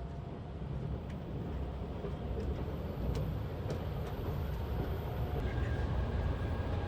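Running noise heard inside a JR Central 383 series limited express train: a steady low rumble of wheels on the rails, with a few faint clicks and a faint steady whine coming in near the end.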